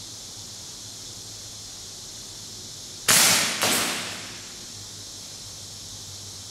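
Gas blowback airsoft rifle firing on green gas: two sharp cracks about half a second apart, a little past the middle, each ringing briefly in a large empty concrete hall.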